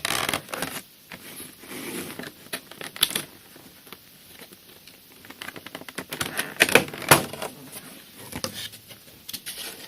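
Cardboard packaging of a Pokémon card collection box being handled and opened, with scattered rustling, crinkling and irregular clicks and taps.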